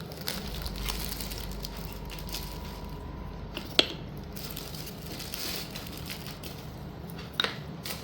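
Slate pieces and packaging being handled: a steady rustle and crinkle, with two sharp clicks of slate knocking together, about four seconds in and again near the end.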